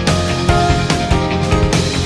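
Background music with a steady drum beat and held notes, rock in style.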